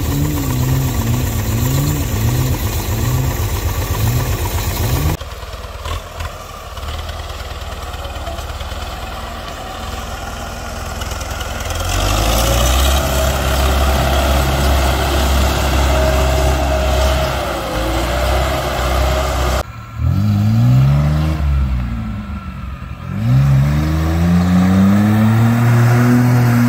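Vehicle engines revving hard in deep mud: a Mitsubishi Pajero 4x4 and a YuMZ tractor, the engine note rising and falling as they pull through. The sound changes abruptly twice where short clips are cut together, with a heavy, steady engine drone in the middle.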